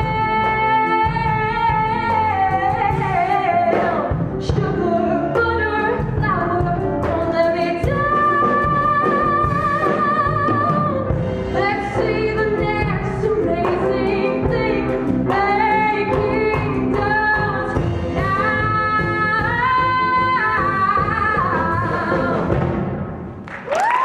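A young woman singing a Broadway ballad solo over instrumental accompaniment, holding long notes with vibrato. The song ends near the end.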